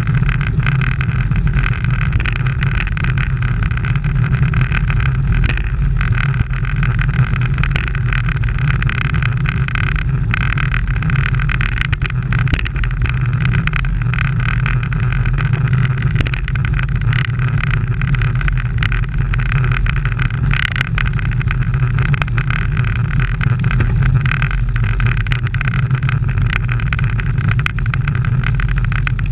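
Wind and road noise picked up by a bike-mounted action camera riding in a road-race pack: a loud, steady low rumble with a hiss of tyres on asphalt.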